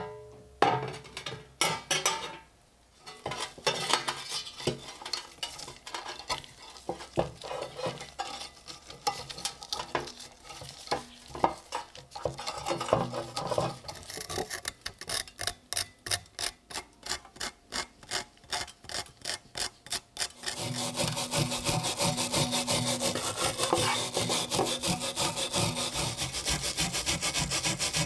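A hand wire brush scrubbing the rusty iron head of an old pickaxe, scraping stroke after stroke, at first in separate strokes and from about two-thirds of the way in as a fast, continuous scrubbing. It opens with a sharp metallic knock.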